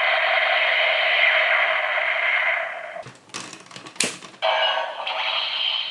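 Electronic sound effect from the Bandai Gabu Revolver toy's small speaker, a steady buzzing tone. About three seconds in it breaks off into a second of plastic clicking from the toy's mechanism, with one sharp click. The tone then starts again.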